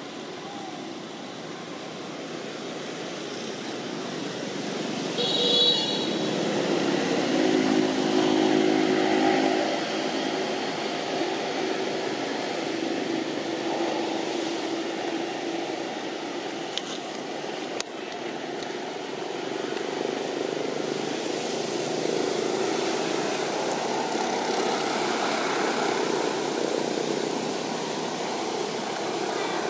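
Motor vehicle traffic going by: a steady hum of engines and tyres that swells a few seconds in, with one engine passing loudest about a quarter of the way through.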